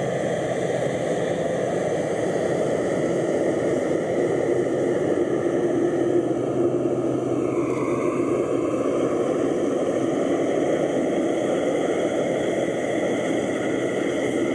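A WestJet Encore Dash 8 Q400 turboprop's engines and propellers run steadily as it taxis close by: a dense drone with a steady hum and whine. About halfway through, the whine dips and shifts in pitch as the aircraft passes.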